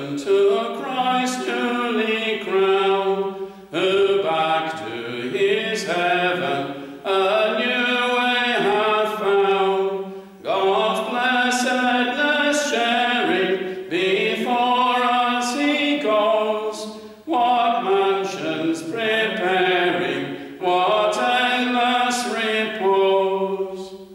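A closing hymn sung by voices, in phrases of about three to four seconds with short breaks for breath between them.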